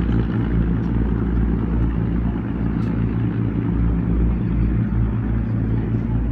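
A river boat's engine runs at a steady pitch, a low hum that holds through the whole stretch, with wind buffeting the microphone.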